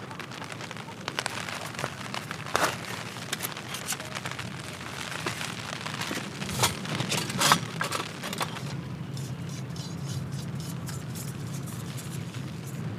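Camp gear being set down and handled on the tent floor, with a few louder knocks about two and a half, six and a half and seven and a half seconds in, over irregular light tapping that thins out about nine seconds in, typical of rain on the tent.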